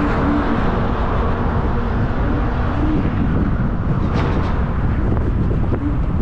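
Car driving at highway speed, heard from the moving car: steady road noise, a low rumble with an even hiss over it.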